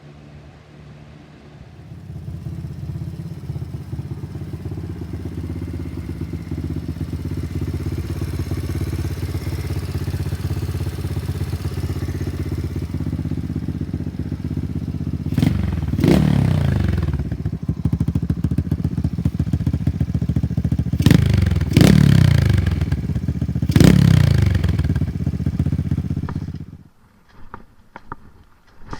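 Small ATV engine idling steadily, blipped three times with each rev falling back to idle, then shut off near the end.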